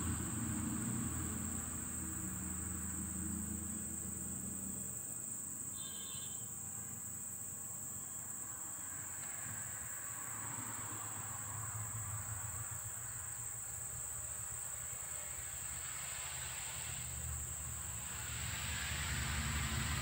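Forest insects trilling steadily at a high pitch, with a brief high chirp about six seconds in. A low rumble sits under the first few seconds and returns near the end.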